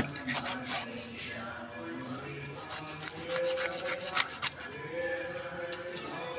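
Steel knife scraping and cutting through a tilapia on a wooden chopping board, in short irregular strokes, over background music.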